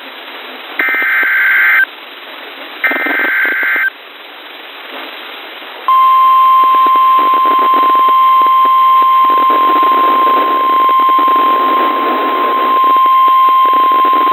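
Emergency Alert System activation on NOAA Weather Radio, received through radio static. Two short bursts of SAME header data (a buzzing, warbling squeal about a second each, the last two of three) are followed by a couple of seconds of hiss. From about six seconds in comes the steady single-pitch 1050 Hz warning alarm tone that announces a new weather warning.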